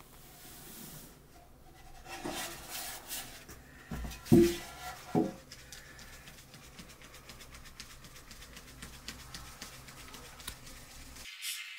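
Flour being sifted by hand through a wooden-rimmed sieve into a plastic basin. Two loud knocks come about four seconds in, then a fast, even patter as the sieve is shaken back and forth.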